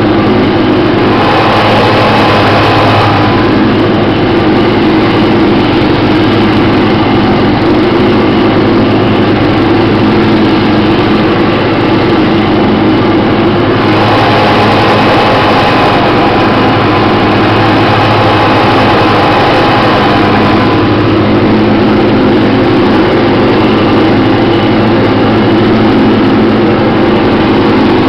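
12 hp Briggs & Stratton engine of a 1990 MTD lawn tractor running steadily under load while the mower deck cuts grass. A higher whine rides over it twice: briefly near the start, and for several seconds about halfway through.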